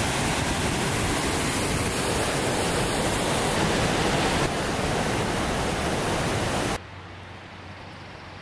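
A steady, loud rushing noise with no distinct tones or clicks. It cuts off abruptly about seven seconds in, leaving a much fainter hiss.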